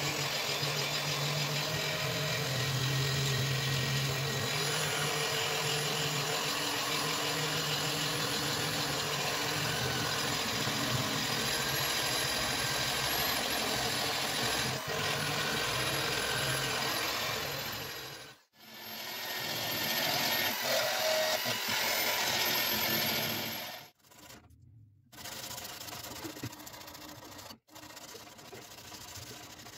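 Handheld rotary tool running steadily with an abrasive bit grinding rust off a steel knife blade. It stops for a moment about 18 seconds in, runs again with a high motor whine, then stops about 24 seconds in. Quieter rubbing and a few clicks follow.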